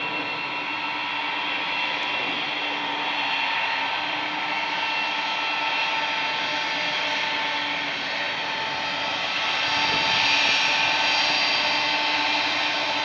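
Boeing 777-200's Pratt & Whitney PW4000-series turbofan engines running as the jet taxis: a steady, growling mid-range drone with a held mid-pitched hum and a higher whine. It swells a little about ten seconds in.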